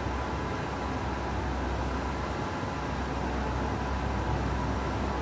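Classic Cadillac V8 engine idling steadily, a continuous low rumble, heard inside a concrete parking garage.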